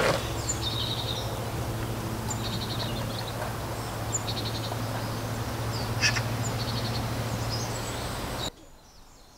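Small birds chirping in short repeated bursts over a steady low hum and background noise, with a sharp click at the start and another about six seconds in. The hum and noise cut off abruptly about a second before the end, leaving fainter chirps.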